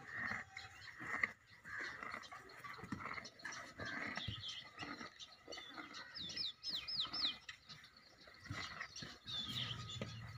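Small birds chirping in a farmyard, with a quick run of about five high, falling chirps a little after the middle, over scattered soft rustles and knocks.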